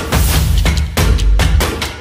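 Background music with a steady drum beat, about four hits a second, over heavy bass.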